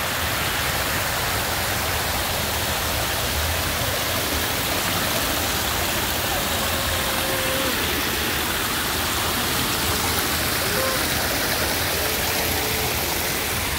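Shallow stream running over granite rocks and spilling down a small drop: a steady rush of water.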